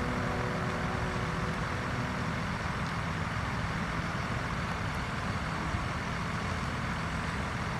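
John Deere 6215R tractor's six-cylinder diesel engine running steadily as the tractor pulls a trailed field sprayer across the field.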